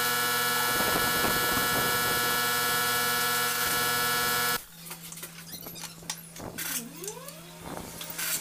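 A machine running steadily with an even drone stops abruptly about four and a half seconds in. After that come scattered small clicks and knocks of hand work at the bench, with one brief squeak.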